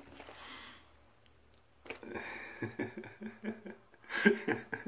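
A man breathes out with a rush of air, then chuckles and laughs from about two seconds in, the laughter growing louder near the end.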